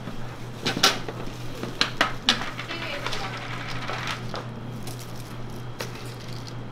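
Sharp clicks and clatters of topping containers and utensils as toppings are piled onto a crepe, most of them in the first couple of seconds and a few more later. A steady low hum runs underneath.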